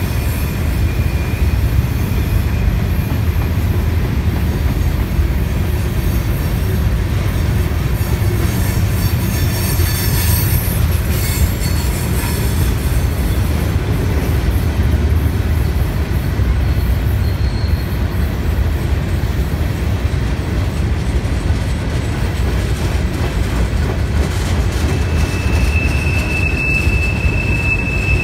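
Train rolling past with a steady, heavy rumble of wheels on rail. A high, steady wheel squeal sounds briefly at the start and comes back near the end.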